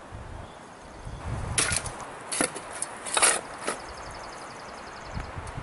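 Metal shovel digging and scraping into ash and dirt in a stone fire pit: four short, sharp scrapes spread over a couple of seconds.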